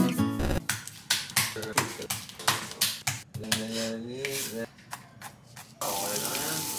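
Kitchen knife chopping on a plastic cutting board, a few irregular strokes a second. Near the end, vegetables in a frying pan start to sizzle steadily.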